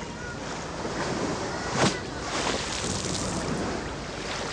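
Steady open-air ambience of wind and lapping lake water, with one short sharp knock about two seconds in.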